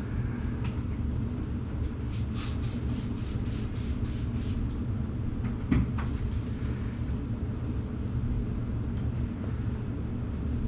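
A carpet-cleaning extractor running with a steady low drone. About two seconds in there is a quick run of about nine short hisses, roughly four a second, and a single sharp knock near the six-second mark.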